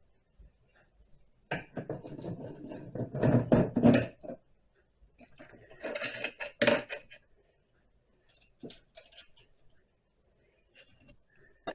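Metal parts clattering and rattling in two bursts, followed by a few light clicks.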